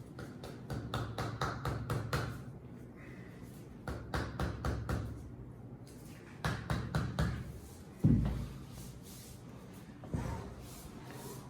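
Several runs of rapid sharp taps and slaps, with one heavy thump about eight seconds in, the loudest sound, from hands working on a patient's body on a chiropractic table.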